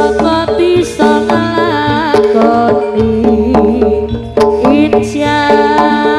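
Loud Javanese jaranan music: hand drums (kendang) beating under a bending, ornamented melody line, over a steady held drone and low booming notes.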